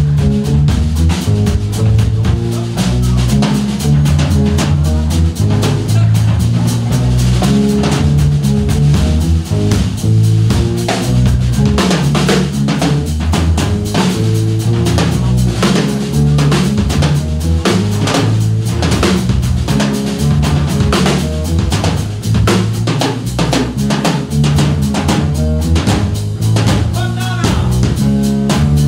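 Live drum kit and electric bass playing an instrumental groove: a busy beat on bass drum, snare and rimshots over a walking bass line.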